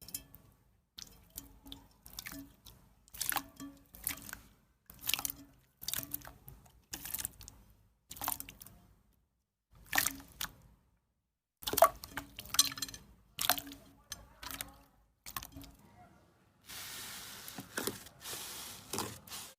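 Slime being squeezed and poked by hand, making wet, sticky squelches and small pops in short bursts about once a second. Near the end there is a steady hiss for about two seconds.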